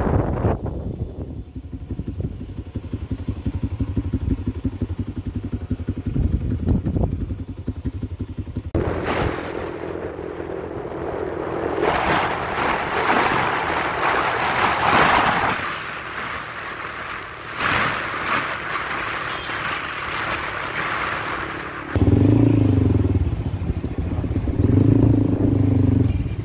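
Wind buffeting the microphone, then the steady rush of road noise and wind from a moving vehicle. Near the end, motorcycle and car engines run close by in traffic.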